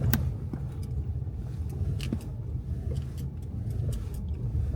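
Car driving slowly over a rough, potholed dirt road: a steady low rumble with scattered knocks and rattles as it goes over bumps.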